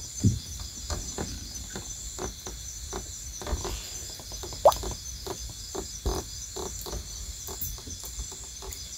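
A steady, pulsing high chorus of insects, with many short frog calls scattered through it, a few each second.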